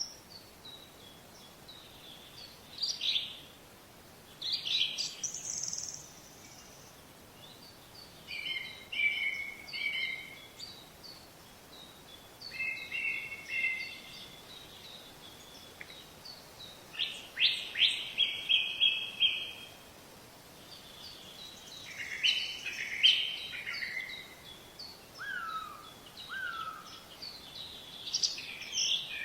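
Wild birds chirping and singing in short bursts of calls and trills, with pauses between, over a faint steady outdoor background.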